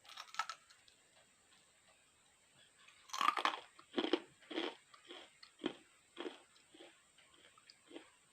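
Someone biting into and chewing a crunchy food: a loud crunch about three seconds in, then a steady run of chewing crunches about two a second, gradually softer.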